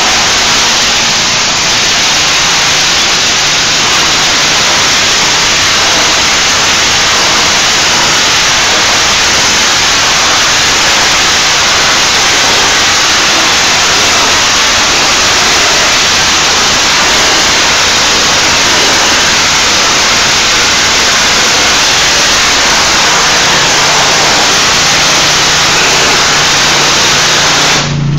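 Hot-water pressure washer spraying pavers: a loud, steady hiss of high-pressure water with a low engine hum underneath.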